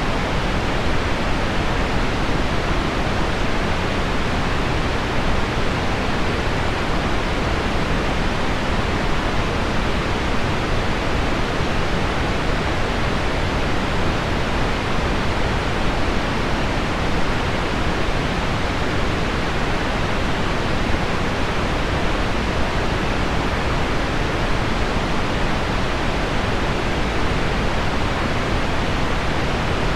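Heavy rain on window glass blended with pink noise: a steady, even hiss that carries most of its weight in the lows and mids and does not change.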